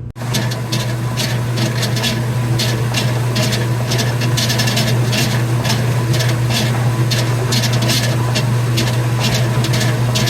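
Commercial top-loading washer running with a loud noise from its drive pulley: a steady low hum with a rhythmic scraping repeating two to three times a second.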